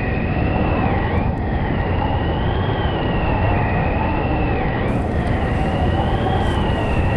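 Storm wind blowing steadily, with a deep rumble and a high, slowly wavering howl above it.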